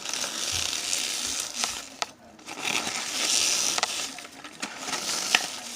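Crunchy slime being squished by hand, the shredded bits of bowl mixed into it crunching and crackling with sharp pops. It comes in three long bursts separated by brief pauses.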